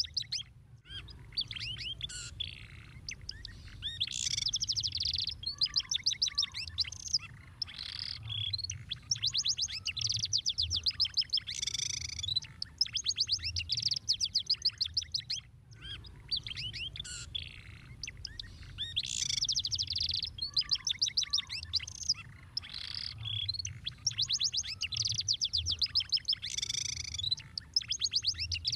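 Domestic canary singing: fast rolling trills and sharp chirps in quick succession, the same song passage repeating about halfway through, over a faint low hum.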